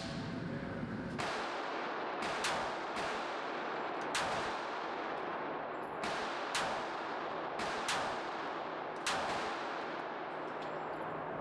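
9mm pistol shots from a Glock 19X with a Radian Ramjet Afterburner compensator, fired one at a time about a second or two apart, five louder reports in all. Each shot has a short ringing tail from the indoor range booth.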